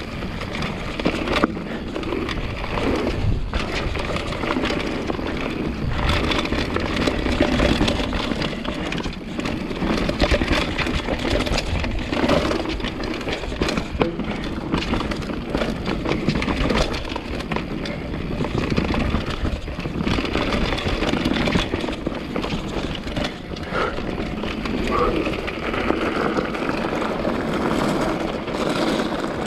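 Full-suspension mountain bike ridden fast down a dirt forest trail: tyres rolling over dirt and roots with a steady stream of rattles, clicks and knocks from the bike.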